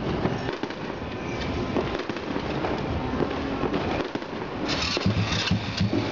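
New Year fireworks and firecrackers popping and crackling, with a louder burst of crackling about five seconds in.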